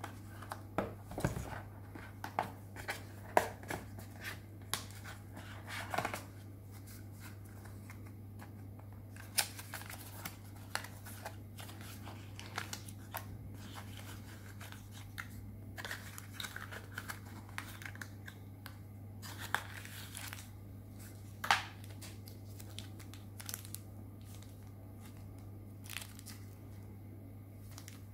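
Paperboard packaging and plastic being handled: irregular rustling, crinkling and small taps as a thin cardboard box and its inserts are opened and the contents pulled out, over a steady low hum.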